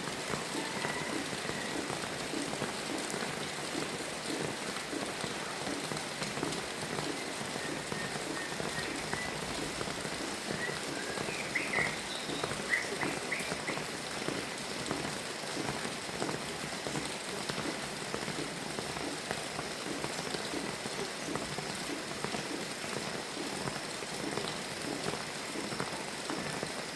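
Steady rain falling, with a few short bird chirps about halfway through.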